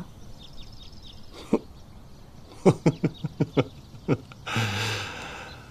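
A soft chuckle: about six quick, short laughs, then a breathy exhale.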